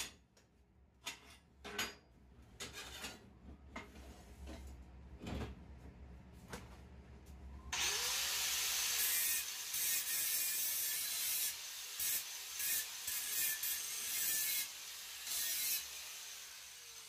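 Clicks and knocks of a thin rod being set and clamped in a homemade vise. About halfway through, a Stanley angle grinder spins up and cuts into the rod with a loud, uneven grinding hiss, and it starts to wind down near the end.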